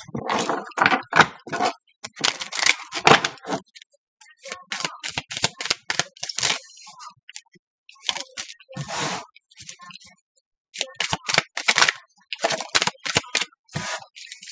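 A deck of tarot cards being shuffled by hand: quick runs of card snaps and flicks, broken by short pauses.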